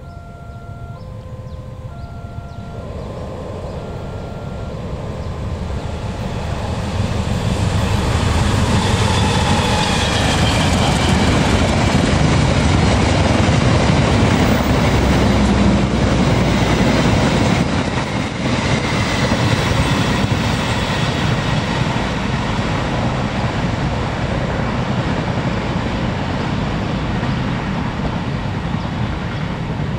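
Diesel-hauled passenger train approaching and passing at speed on a curve: a rumble that swells over the first several seconds, then the carriages rolling by loudly, with a high, wavering squeal from the wheels on the curved track. A repeating electronic chime of a few notes fades out in the first few seconds.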